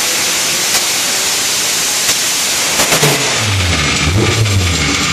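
Dodge Neon SRT-4's built, turbocharged 2.4-litre four-cylinder at full throttle on a chassis dyno, a loud rushing roar near peak revs. About three seconds in it eases off and a lower engine note comes through, wavering as the revs fall with the wheels still spinning on the rollers.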